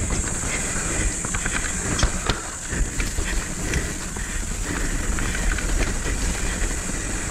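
Mountain bike ridden fast down a dirt trail: a steady rush of wind rumble on the microphone and tyre noise over dirt and rock, with scattered sharp knocks and rattles from the bike over bumps.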